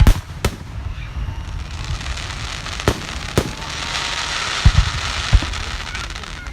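Aerial fireworks bursting: about seven sharp booms, the first right at the start, with a dense high hiss of crackle from about two seconds in.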